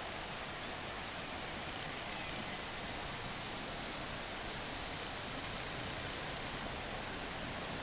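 Steady outdoor background hiss, even and unbroken, with no distinct events.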